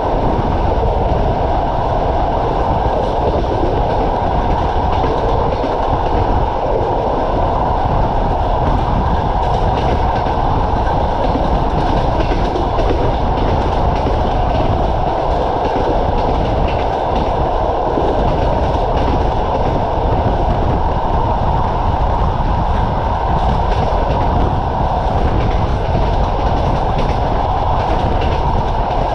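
Passenger coach running along the line: a steady rumble and rush of wheels on rails and passing air, heard at a coach window, with no breaks or changes.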